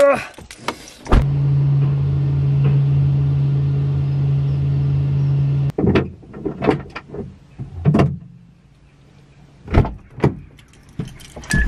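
A car's electric window motor runs with a steady hum for about four and a half seconds, starting and stopping abruptly. It is followed by a series of short knocks and clicks.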